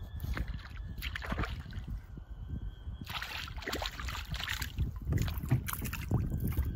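Water sloshing and lapping against a kayak hull in two short spells, over a steady low rumble.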